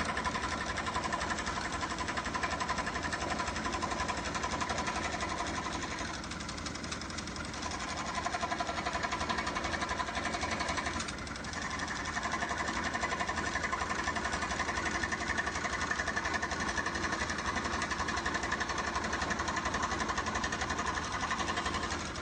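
Electric scroll saw running and cutting MDF, its fine blade pumping up and down in a fast, steady buzz. The sound dips briefly twice, about a third of the way and halfway through, and then stops abruptly at the end.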